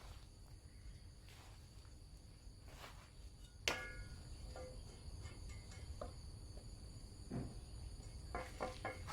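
Faint, steady high-pitched insect chorus. About three and a half seconds in there is one sharp knock that rings briefly, and near the end there are several lighter clicks.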